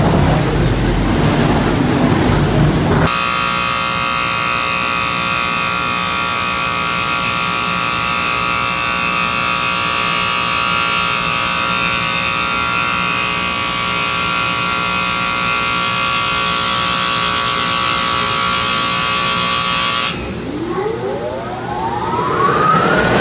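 Water spray hitting the light-rail cab for the first few seconds, then a steady multi-tone machine whine from the train wash equipment that cuts off suddenly. A rising whine follows near the end.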